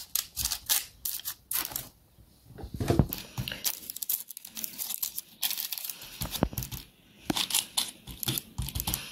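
Parchment baking paper rustling and crinkling as hands press and set dough logs on a lined baking tray, in short irregular crackles with brief pauses.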